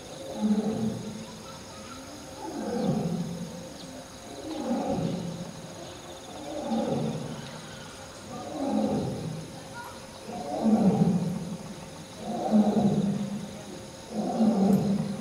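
Lion roaring: a run of eight deep calls, one about every two seconds, growing louder in the second half.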